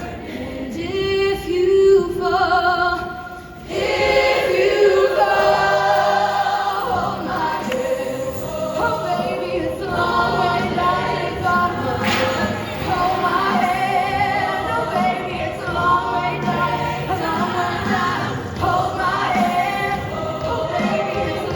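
Show choir singing in harmony, backed by a live band, with a short break in the sound about three and a half seconds in.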